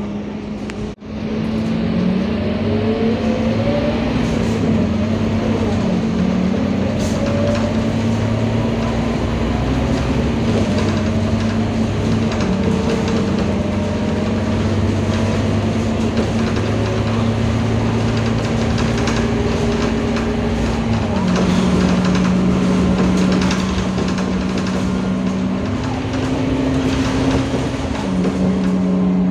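Scania Euro 4 city bus on the move, heard from inside the passenger cabin: the diesel engine and drivetrain give a steady hum that shifts pitch now and then, with rising whines as the bus gathers speed.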